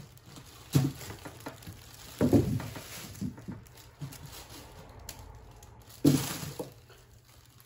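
Sweet potatoes being handled and set down on plastic sheeting over a wooden floor: a few soft knocks with plastic rustling. The strongest come about one, two and six seconds in.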